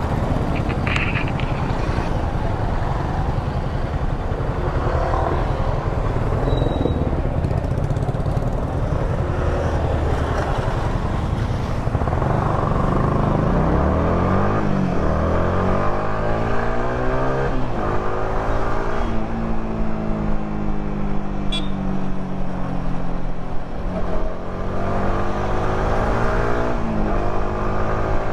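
Yamaha R15 V3's single-cylinder engine on its stock exhaust, riding along with a steady rush of wind. In the second half the engine note climbs and drops several times as the bike accelerates and shifts through the gears.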